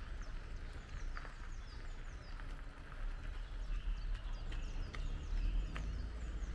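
Small birds chirping: many short calls that fall in pitch, with a few sharp clicks, over a low rumble.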